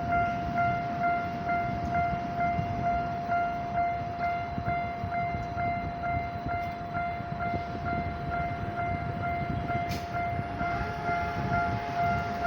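Japanese level-crossing warning bell ringing in an even, fast repeating ding over the low rumble of a Tokyo Metro Ginza Line train running over the crossing. Near the end a second, slightly higher bell tone joins in.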